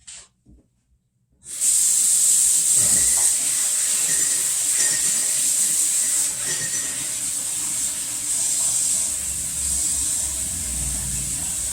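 Kitchen tap turned on and running into the sink while hands are washed under it: a steady water hiss that starts suddenly about a second and a half in.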